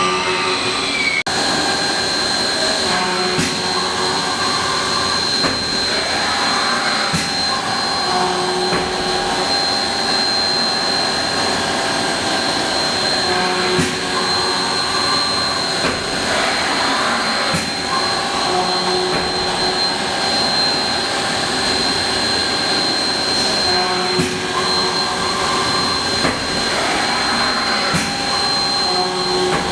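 Haas ST-30BB CNC lathe running under power with a steady high whine, going through a cycle that repeats about every ten seconds: a sweep in pitch as the machine speeds up and slows down, and sharp clicks each round.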